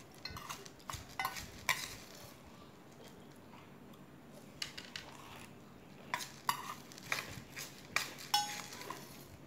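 Steel spoon clinking and scraping against a stainless steel bowl while scooping puffed rice, in clusters of quick clinks; one clink near the end rings briefly.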